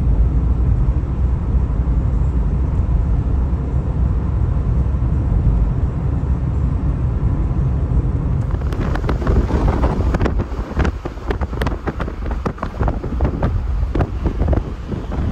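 Steady low road and engine rumble of a car driving at highway speed, heard from inside the car. From a little past halfway, wind buffets the microphone in uneven gusts over the rumble.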